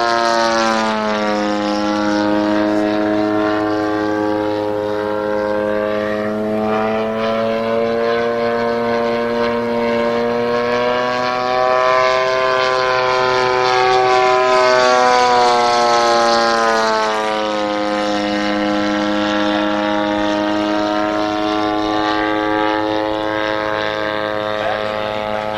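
Desert Aircraft DA-70 twin-cylinder two-stroke gas engine and 24x10 carbon propeller of a large radio-controlled aerobatic plane running in flight. Its pitch rises and falls with the throttle during the manoeuvres: it drops about a second in, climbs back around the middle, and drops again later on.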